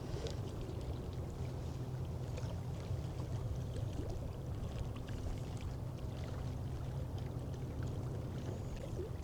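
Wind blowing across the microphone outdoors: a steady low rumble.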